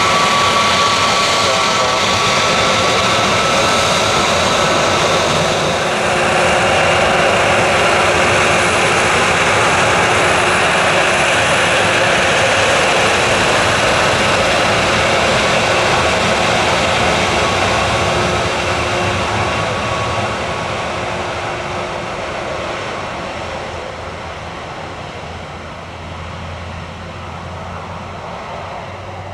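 Jet airliner engines, a loud steady roar with a whine of steady tones over the first few seconds, fading over the last ten seconds or so as the aircraft moves away.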